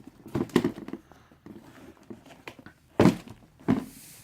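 Dull thuds and handling noise: a few soft knocks in the first second, then two louder thuds about three seconds in, under a second apart.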